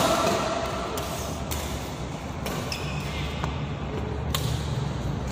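Badminton rackets striking a shuttlecock in a doubles rally: a series of sharp smacks roughly a second apart, heard over the steady hum of the hall.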